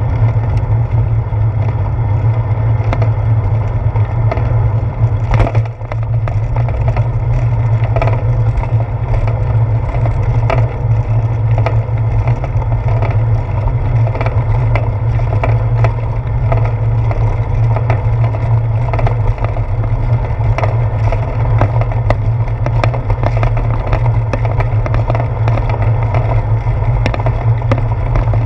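Bicycle rolling over a brick-paved street, heard through a seat-post-mounted action camera: a steady low rumble with frequent small irregular clacks and rattles from the pavers and the mount.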